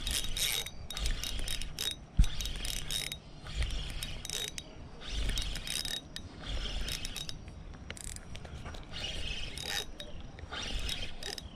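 Shimano Stradic Ci4 2500 spinning reel being cranked hard in short spurts, a high whirring with clicks, as a hooked bass is reeled in. A single knock sounds about two seconds in.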